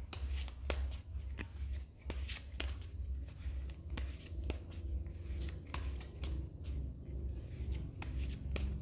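Tarot cards being handled: an irregular run of small clicks and rustles of card stock, several a second.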